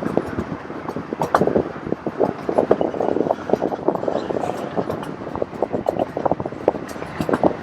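Miniature railroad train running along its track: the passenger cars rattle and clack in a dense, irregular patter, with wind on the microphone.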